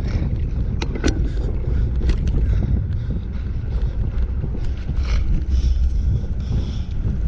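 Motocross bike engine running hard on a beach race course, heard from the handlebar with heavy wind buffeting on the microphone and a few short sharp ticks now and then.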